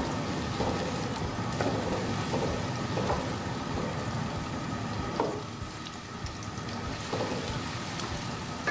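Sliced onions sizzling as they fry in hot ghee in an aluminium karahi, being browned. A wooden spoon stirs them, with a faint scrape or knock against the pan every second or two.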